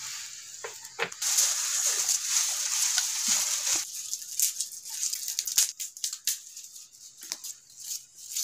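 Oil hissing and sizzling in a kadhai for about three seconds, stopping abruptly. Then come scattered light clicks and crunches of a knife cutting tomatoes over a steel bowl.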